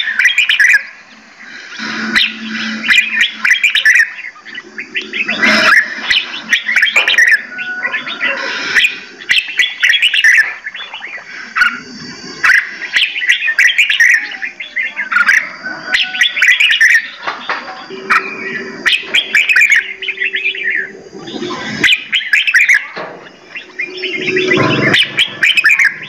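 Several caged songbirds singing and chirping over one another in quick, repeated bursts of trills.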